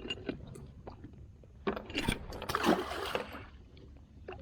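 Handling noises on a fishing kayak: scattered small clicks and knocks on the hull and gear, with a louder stretch of splashing and rustling about two seconds in.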